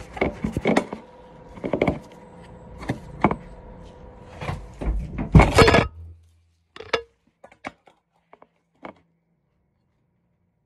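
Handling noise from a phone camera being moved and set up: a run of knocks, bumps and rubbing right on the microphone, the loudest about five and a half seconds in. After about six seconds it is almost silent, with a few faint clicks.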